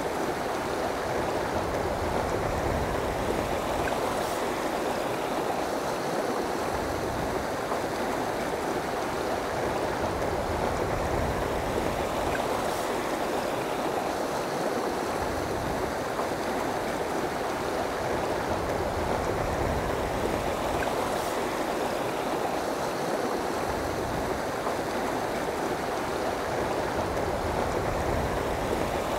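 River water rushing steadily, an even, unbroken sound of flowing current.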